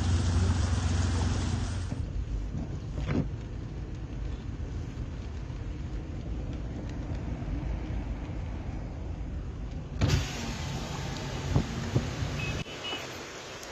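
A car running, heard from inside the cabin, across short phone clips cut together. At first there is a steady engine hum; after a cut about two seconds in, it turns to a lower, even rumble of the car rolling along, with a few light clicks near the end.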